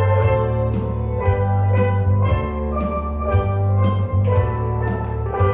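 Steel pan band playing a tune together, many pans struck in a steady rhythm about twice a second over a sustained low bass line.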